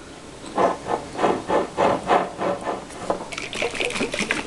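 Oats, seeds and almond milk sloshing inside a sealed glass mason jar shaken by hand, about three shakes a second for a couple of seconds, then a softer, higher rustling near the end.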